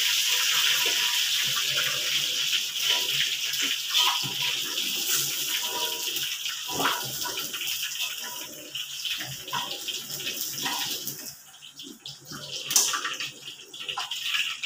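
Hot oil sizzling in a wok as fried pieces are lifted out with a metal spatula, with occasional clicks and scrapes of the spatula on the wok. The sizzle dies down about eleven seconds in.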